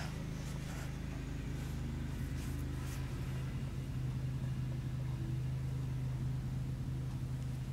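A steady low machine hum, with some faint rustling and light knocks in the first three seconds.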